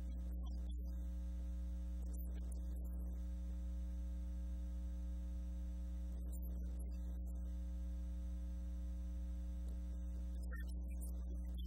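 Steady electrical mains hum with a ladder of overtones on the audio feed, holding at one level throughout.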